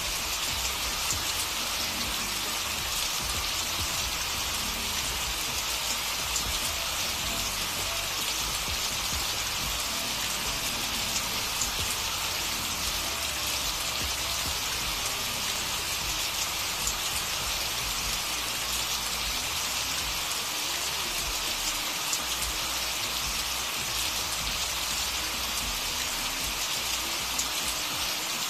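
Steady rain falling on a surface: an even hiss with scattered drop ticks, unchanging throughout.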